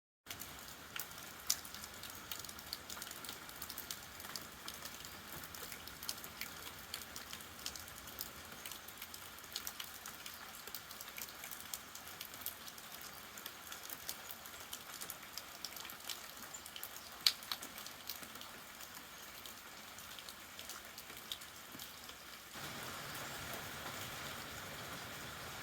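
Rain falling, a steady patter with many separate drops ticking. About 22 seconds in, a louder steady noise joins it.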